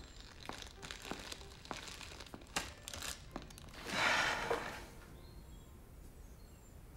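Crinkling and rustling of a potato chip bag: a run of small crackles, then a louder rustle about four seconds in.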